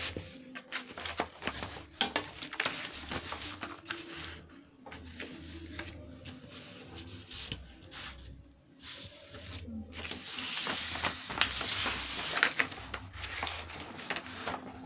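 Stiff brown pattern paper rustling and rubbing under the hands while a metal ruler is laid on it, tapped and slid, with scattered clicks and a sharp tap about two seconds in.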